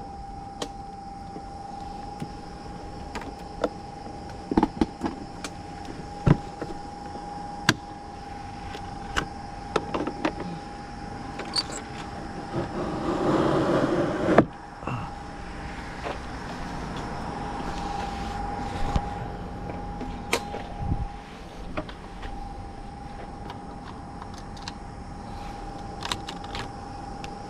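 Scattered clicks and knocks over a steady high hum, with about two seconds of small-motor whirring about halfway through that ends in a sharp clunk.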